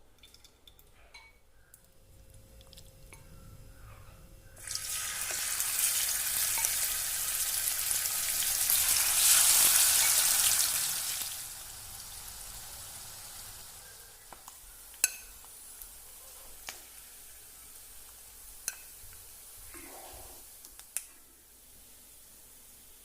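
Food frying in hot oil in a pan: a loud sizzle starts suddenly about five seconds in and lasts about seven seconds, then settles to a quieter steady frying hiss. A few sharp clicks of a utensil against the pan come near the end.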